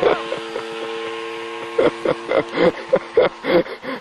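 Engine of a radio-controlled model tow plane running at a steady pitch overhead. Short irregular bursts of noise break over it, mostly in the second half.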